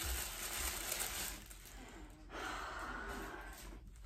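Rustling of packaging as plant cuttings are unwrapped and handled, in two long stretches with a short break a little past the halfway point.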